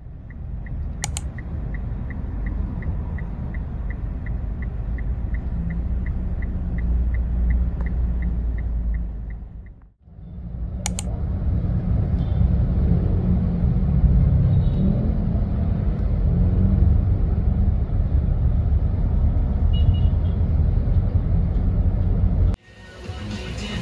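Steady low rumble of a car being driven, heard inside the cabin. For about the first ten seconds a light ticking repeats about three times a second over it. After a short break the rumble comes back a little louder.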